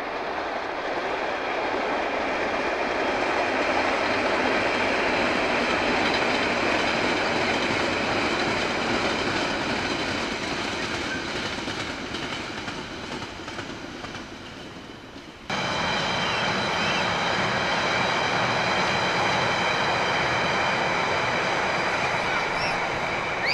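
London Underground train running along the track: a steady rumble of wheels on rail that slowly fades, then jumps back louder about two-thirds of the way in, with a steady high whine over it.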